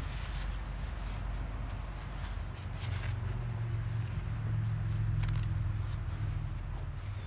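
Soft rustling of cloth and cord being handled, with a few light ticks, over a steady low rumble that swells slightly in the middle.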